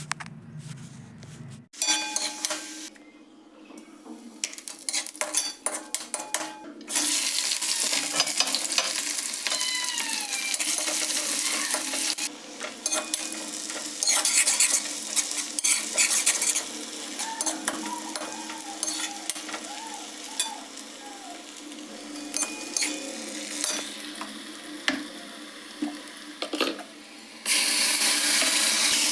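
Food sizzling as it fries in hot oil in a pan, with a spoon or spatula stirring and clinking against the pan. The sizzle grows louder about seven seconds in and again near the end.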